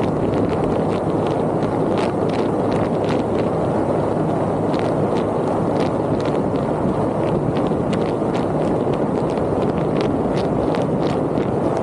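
Steady road and wind noise of a vehicle on the move, with scattered light ticks and clicks throughout.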